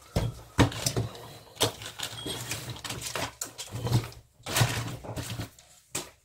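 Willow rod and wicker basket being handled and worked by hand: irregular knocks, clicks and scraping of willow against the woven basket and tools.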